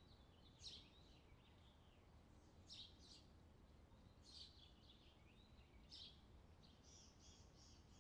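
Near silence, with a few faint high chirps and, near the end, a quick regular run of faint high ticks.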